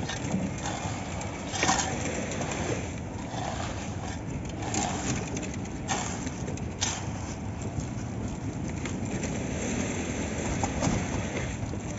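Concrete-pouring site noise: a steady engine running, with scattered short knocks and scrapes.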